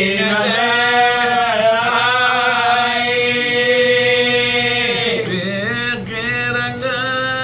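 Several men chanting a marsiya, an Urdu elegy, together without instruments, drawing out long held notes. The pitch dips and comes back up about five seconds in.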